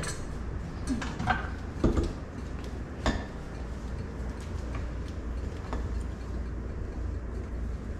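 Pureed soup being poured from a blender jar into a steel stockpot, with a few light knocks and clinks of the jar and pot over a steady low hum.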